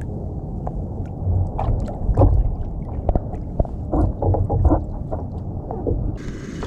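Kayak paddle strokes dipping and pulling through the water, with water sloshing and splashing against the hull, heard muffled. Shortly before the end the sound switches to a clearer, brighter water wash.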